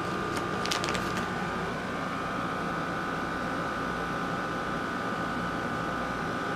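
Steady background hum and hiss with a thin, steady high whine, and a few light clicks about a second in.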